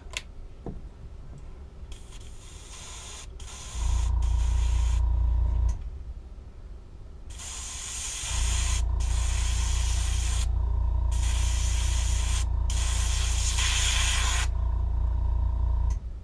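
Airbrush spraying paint in short on-and-off hissing passes onto a fishing lure. Under it, a low motor hum, the airbrush's air compressor running, comes on about four seconds in for a couple of seconds, then again from about eight seconds until just before the end.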